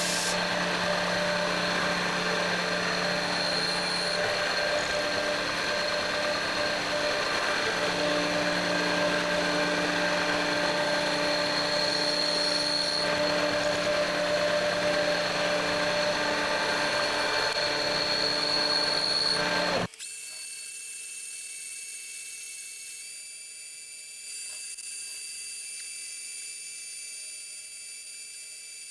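Metal lathe running while the cutting tool turns a taper on a metal hammer handle, throwing off curled chips: a loud, steady machining noise with whining tones. About two-thirds of the way in it drops suddenly to a quieter running with steady high whines.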